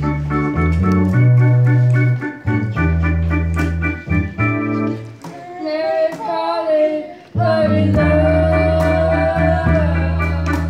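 Song with organ-like keyboard chords; a woman's singing voice comes in over the chords about halfway through, sung into a handheld microphone.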